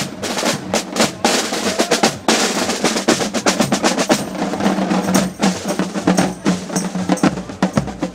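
Drum band playing: rapid snare drum beats and rolls over bass drum, with a steady low note held for a few seconds in the middle.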